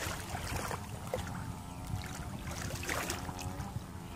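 Shallow muddy paddy water sloshing and splashing as hands grope through it, over a steady low rumble of wind on the microphone.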